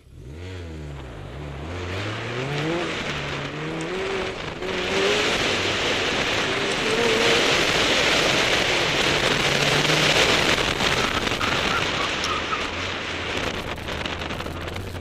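Car launching hard from an autocross start line: the engine revs climb and drop in the first couple of seconds as it pulls away and shifts. It then runs at high revs through the cone course, with loud tyre and wind noise that builds about five seconds in.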